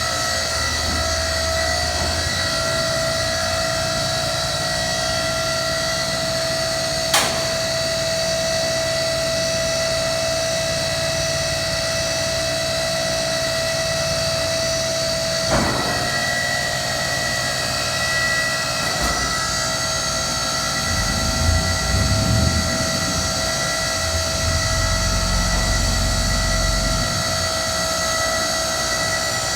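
Hydraulic pump motor of a Harmony vertical cardboard baler running steadily under a compaction cycle, with a steady whine over it. A sharp click comes about seven seconds in and another about fifteen seconds in, where the whine drops away. A lower, uneven rumble rises and falls in the last third.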